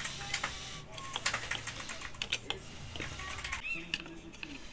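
Kitchen knife tip turning a small screw out of a wooden shelf bracket: quick, irregular metallic clicks and scrapes of the blade in the screw head.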